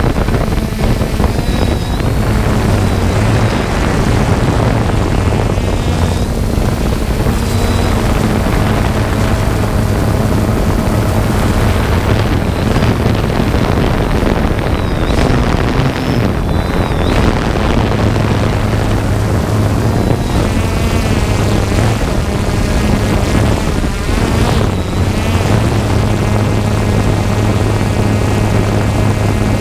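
3DR Solo quadcopter's electric motors and propellers buzzing steadily, heard up close from the GoPro mounted on the drone, with a low hum whose pitch steps up and down as it manoeuvres. Some wind noise is mixed in.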